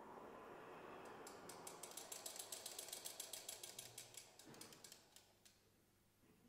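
Quiet extended-technique sounds from a brass quintet: a breathy rush of air through the instruments that fades out about four and a half seconds in, overlaid from about a second in by a rapid run of soft mechanical clicks, around ten a second, that thins out and stops near the end.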